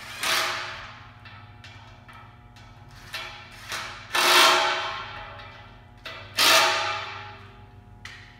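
Cordless drill/driver fastening parts of an aluminium extrusion frame: three loud sharp sounds, each fading away over about a second, with a couple of lighter knocks between.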